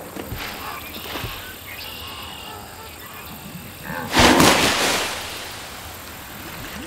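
Cartoon sound effects: a couple of light thumps as a wildebeest lands on a crocodile's back. About four seconds in, a loud splash fades over about a second as the crocodile dives under the water with it.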